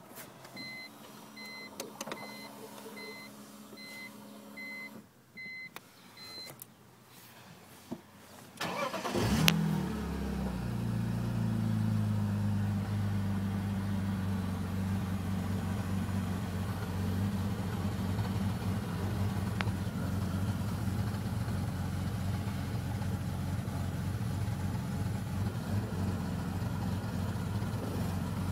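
A car's warning chime beeps steadily twice a second for about six seconds. About nine seconds in, a 2002 BMW 330Ci's 3.0-litre straight-six cranks, catches and settles into a steady low idle. The owner suspects the car's misfires come from its fuel pump.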